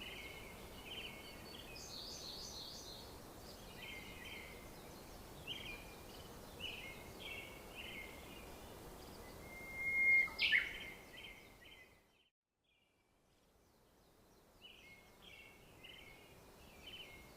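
Small birds chirping repeatedly over a faint outdoor hiss, with one louder call about ten seconds in; the sound cuts out completely for about two seconds just after it, then the chirping resumes.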